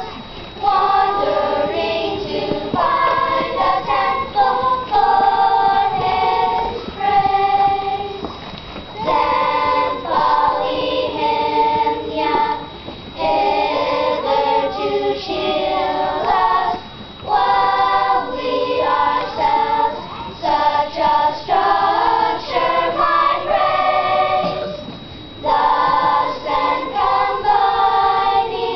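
Children's choir singing in unison, in phrases with short breaks between them.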